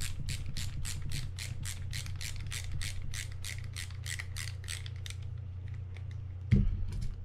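A screwdriver backing a screw out of the side plate of a Penn 320GTi levelwind reel, with rapid, even clicking at about five clicks a second that stops about five seconds in. Near the end come two sharp knocks, the first the loudest sound here.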